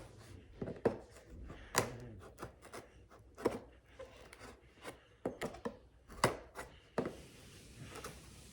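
Tape being worked open on a cardboard box: irregular taps, scrapes and clicks of hands and cardboard, with a few sharper knocks.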